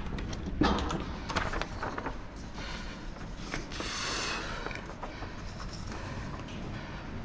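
A runner's footsteps on a hard floor, coming as uneven quick clicks, with a short rushing hiss about four seconds in.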